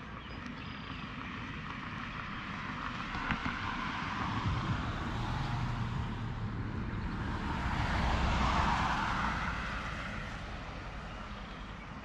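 A motor vehicle passing by, its engine sound swelling to a peak about eight and a half seconds in and then fading away.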